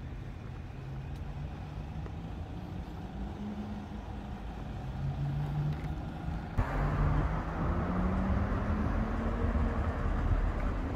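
Road traffic outdoors: a motor vehicle's engine runs with its pitch rising slowly over several seconds. About six and a half seconds in, the sound changes abruptly to louder, steady city-street traffic noise.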